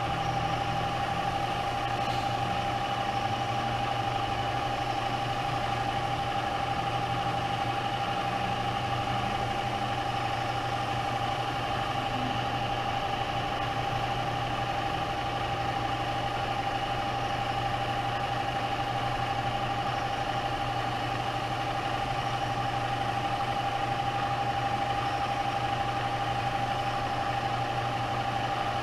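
Bridgeport EZ Trak DX II CNC vertical mill's spindle head running steadily at a turned-down speed: a steady whine over a low hum. The head runs quiet and sounds good.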